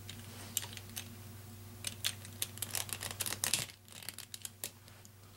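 Plastic Rubik's Cube pieces clicking and tapping as they are handled and pressed back into the cube, in irregular bunches of sharp clicks, busiest from about two seconds in and thinning out near the end, over a faint steady hum.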